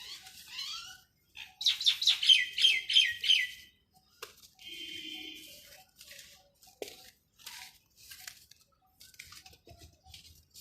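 A bird chirps a quick run of falling notes about two seconds in. Around it come short, scattered crackles of dry dirt and stones crumbling into water.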